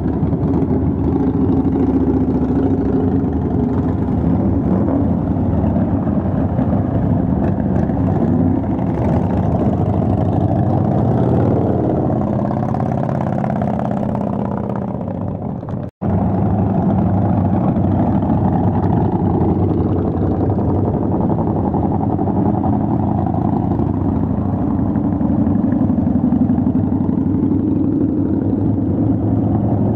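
Cruiser motorcycles riding past one after another at low speed, their engines running and revving as each goes by, with a pickup truck's engine passing near the start. The sound drops out for an instant about halfway through.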